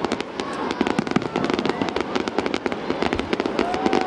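Fireworks display: a dense, rapid crackle of many small bursts popping several times a second without a break.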